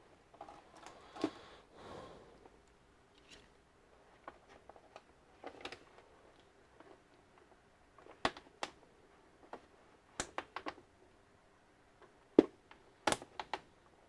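Scattered sharp clicks and light knocks of plastic parts and tools being handled while taking apart an all-in-one computer, with a short scraping or rubbing in the first two seconds. The sharpest clicks come in a cluster near the end.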